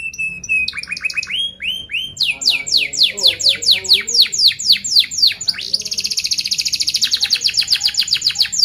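Domestic canary singing: a run of quick, high, downward-sweeping chirps, then, in the second half, a long, tight, rapid roll of evenly repeated notes.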